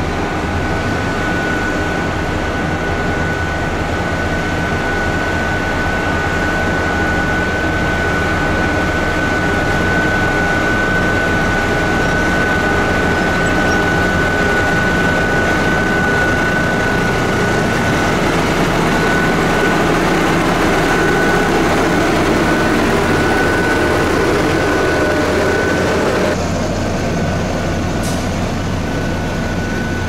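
LiuGong single-drum road roller's diesel engine running steadily up close as the compactor drives over loose dirt, with a steady high whine over the engine drone. About four seconds before the end the sound drops and changes to another heavy diesel engine.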